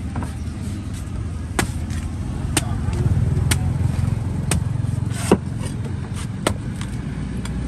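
Cleaver chopping into the husk of a young green coconut: about six sharp chops, roughly one a second, over a steady rumble of street traffic.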